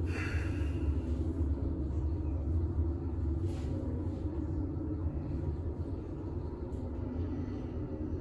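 Elevator car travelling between floors: a steady low rumble that eases slightly near the end.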